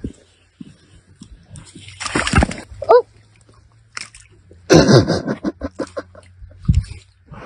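A dog plunging into a muddy pool with a splash about two seconds in, followed by a short wavering cry. A louder bout of splashing and sloshing comes a couple of seconds later as it flounders in the mud.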